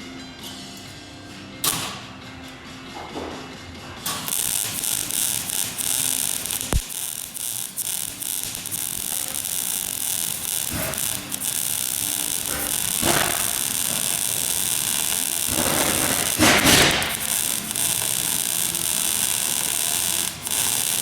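Electric welding arc crackling and hissing steadily, starting about four seconds in and running until just before the end, with a few louder surges along the way.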